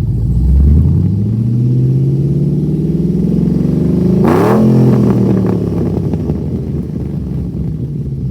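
2013 Holden VF Commodore SSV Redline's V8 revved once through its exhaust: the engine note climbs steadily for about three seconds, peaks, then drops quickly and settles back to idle.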